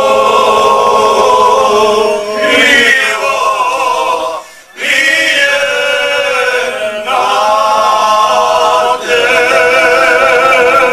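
A group of six men singing a Serbian traditional folk song a cappella in harmony, holding long notes; the voices break off briefly for breath about four and a half seconds in.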